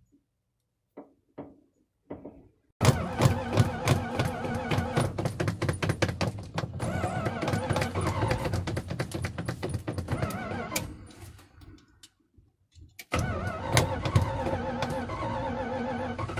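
A gasoline engine fuelled with diesel is cranked and fires. It starts suddenly after a few faint clicks, runs with rapid pulsing for several seconds, then dies away. After a short pause of about two seconds it is cranked again.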